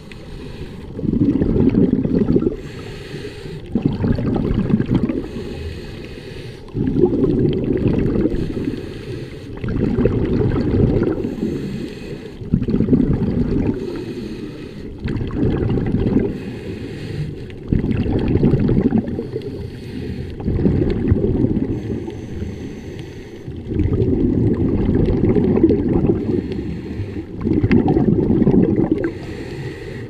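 Scuba regulator exhaust bubbles heard underwater: low, bubbling rumbles in surges every two to three seconds, with quieter gaps between breaths.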